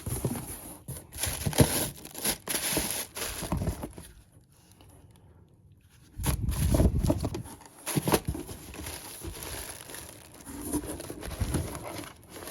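Plastic packaging crinkling and rustling as packaged phone parts are handled, with a few sharp clicks and knocks. It stops for about two seconds around four seconds in, then starts again.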